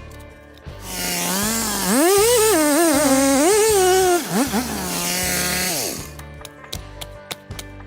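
Background music with a steady beat, and over it, from about a second in until near six seconds, a chainsaw runs loudly, its pitch rising and falling as it revs.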